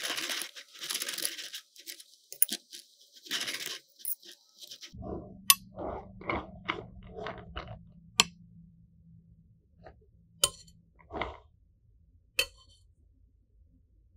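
Metal offset spatula spreading whipped cream over a cake: a scraping hiss for the first few seconds, then a quick run of short soft smoothing strokes and a few sharp clinks of metal touching the plate.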